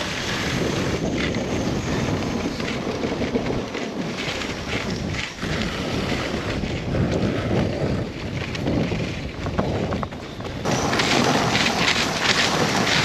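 Headwind buffeting the microphone on a moving dog sled, a steady rushing noise that grows louder about eleven seconds in.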